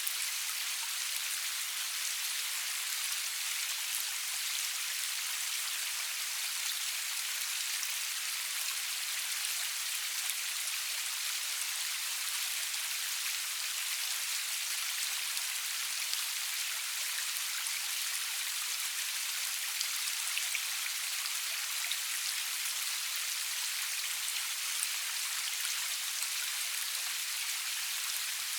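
Steady rain falling, an even hiss with scattered ticks of drops hitting a surface, with no thunder.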